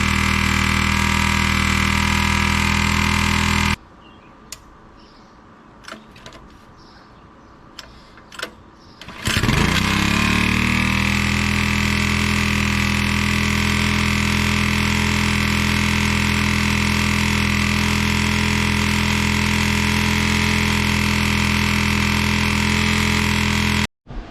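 Honda GX200-clone single-cylinder engine on a pressure washer running steadily at speed, then cutting off abruptly about four seconds in. A few clicks and knocks follow, and about nine seconds in the engine starts again, rising in pitch and settling back to steady running near 2,700 rpm.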